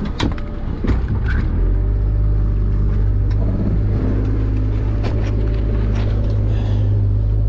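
Fishing boat's engine running with a steady low rumble that swells about one and a half seconds in, with scattered knocks and rattles from a wire-mesh crab pot being handled on the deck.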